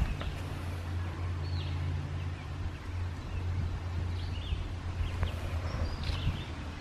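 Wild birds chirping, short rising-and-falling calls a few times, over a steady low rumble, with a couple of light clicks.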